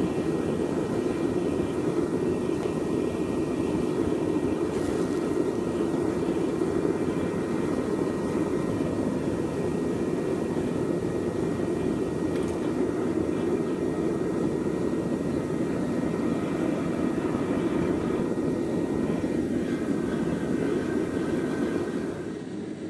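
Metal-melting foundry furnace's burner running with a steady low rushing noise, dropping to a quieter level near the end.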